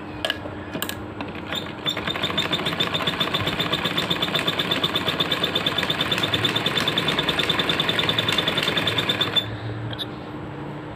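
Sewing machine running a line of edge stitching along a shirt cuff, a fast, even stitching beat that starts about two seconds in and stops after about seven and a half seconds. A few light clicks come before it starts.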